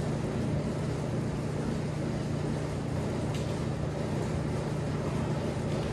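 Steady low machine hum that does not change, with a faint click about three seconds in.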